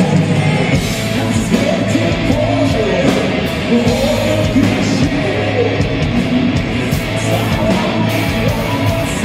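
Live heavy metal band playing loud: a male singer's wavering sung vocal over electric guitars, bass and drums.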